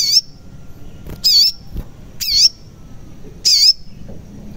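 Sunbird (sogon) repeating a short, sharp, high call about once a second, four times.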